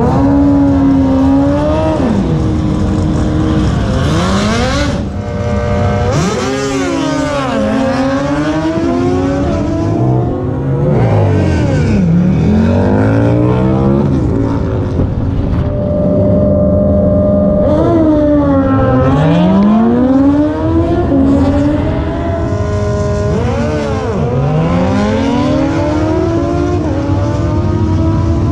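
Drag racing engines revving and accelerating hard down the strip. Their pitch climbs, drops sharply at each gear change and climbs again, over and over, with several engines overlapping.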